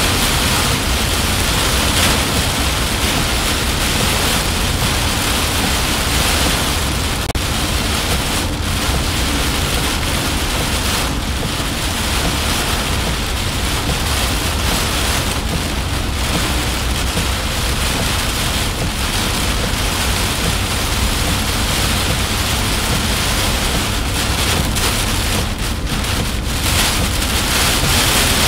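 Heavy rain beating on a moving car's roof and windshield, heard from inside the cabin as a steady, dense hiss over a continuous low rumble of road and wind noise.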